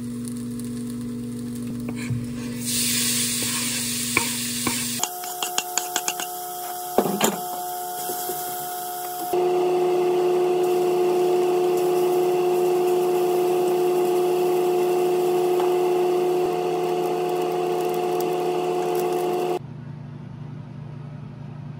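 Diced spam and green onion sizzling in oil in a frying pan, stirred and scraped with a spatula. There is a run of sharp spatula taps on the pan about five to eight seconds in, and a steady hum under it all.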